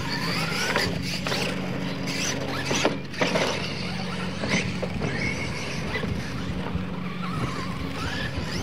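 Radio-controlled monster trucks racing, their motors whining, with the pitch rising and falling as the throttle changes. There are a couple of sharp knocks about three seconds in.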